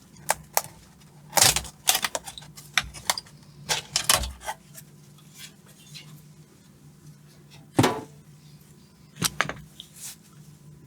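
Irregular sharp clicks and knocks of small hard plastic and metal parts being handled and set down on a workbench, with the loudest knocks about one and a half seconds in and again near eight seconds, over a faint steady low hum.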